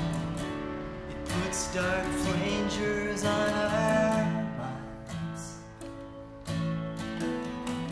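Live band music led by a strummed acoustic guitar.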